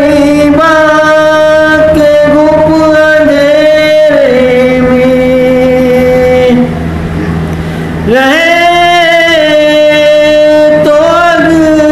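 A man's amplified voice singing a Shia mourning elegy in long, drawn-out, wavering notes with no clear words. The pitch drops about four seconds in, eases into a softer lull near the middle, and rises again into loud held notes about eight seconds in.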